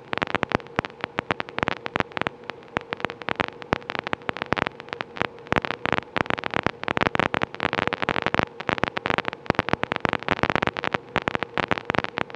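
Constant crackling on an autogyro's radio and intercom audio: rapid, irregular clicks under a faint steady hum. This is electrical interference that the pilot puts down to poor suppression.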